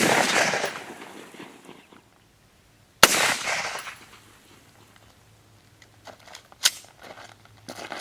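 Two rifle shots from a 10.5-inch AR pistol about three seconds apart, each a sharp crack trailing off in echo for over a second: the first unsuppressed, the second through a suppressor. The supersonic round keeps the suppressed shot about as loud as the unsuppressed one.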